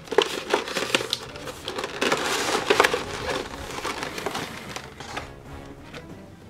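Clear plastic clamshell packaging being slid out of a cardboard box, crinkling and crackling, with scrapes and light knocks against the cardboard.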